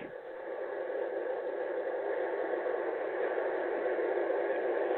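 Recorded ocean surf as a steady rushing wash of waves, slowly swelling louder.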